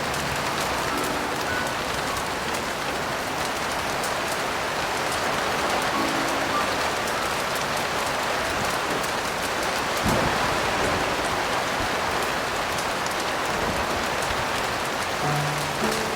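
Heavy rain falling steadily, an even rushing hiss, with a brief low rumble about ten seconds in.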